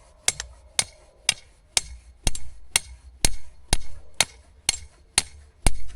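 Hand hammer striking a steel ground rod to drive it into the ground, steady blows about two a second.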